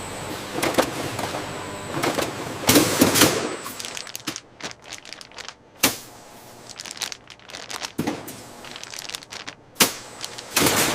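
Flour bag packing machinery working: irregular sharp clacks and knocks mixed with short hissing bursts of air. The loudest burst comes about three seconds in, and there are single hard knocks around six and ten seconds in.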